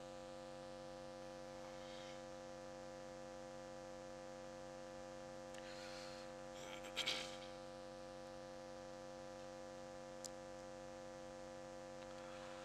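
Faint, steady electrical mains hum made of several even, unchanging tones, with a brief soft noise about seven seconds in and a tiny click near ten seconds.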